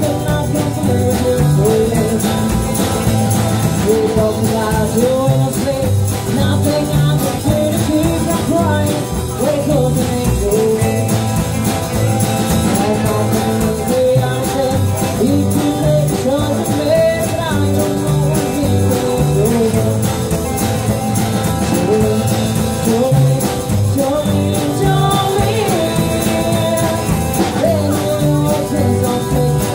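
Live rockabilly band playing, with upright double bass and acoustic and electric archtop guitars.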